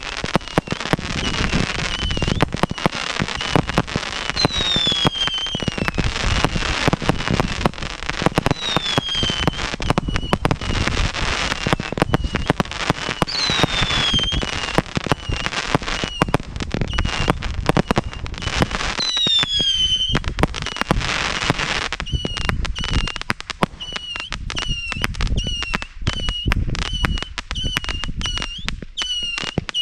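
Small consumer firework cakes firing in rapid succession: dense popping and crackling, with whistles that glide down in pitch every few seconds and, in the last third, a quick run of short chirping whistles.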